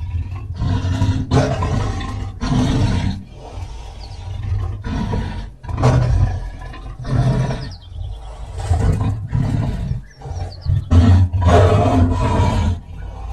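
Big cat roaring and growling: a string of about ten short, deep roars one after another over a steady low rumble, presented as the voice of the cave lion.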